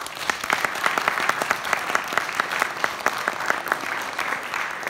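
Audience applauding, starting suddenly, with one person's sharp claps close by standing out at about four a second.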